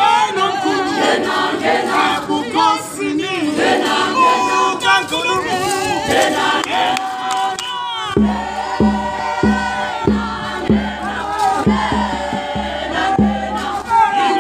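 A group of voices singing together. About eight seconds in, a steady low beat joins them at a little under two strokes a second.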